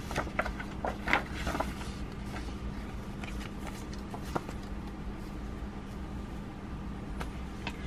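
Paper instruction booklet being handled and folded away: a few short crinkles and taps in the first two seconds and one faint click later, over a steady faint hum.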